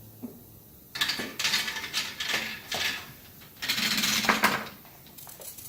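A marble clattering down a toy marble run, dropping from level to level and rolling round the track in a string of clicks and rattles lasting about three and a half seconds.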